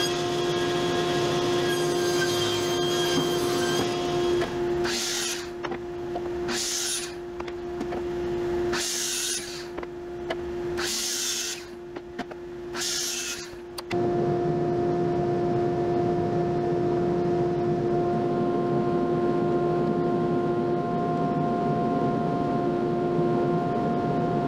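A woodworking power tool running with a steady high-pitched hum. About four seconds in, the low rumble drops away and five short bursts of hiss follow, roughly two seconds apart, before the full running sound returns near the middle.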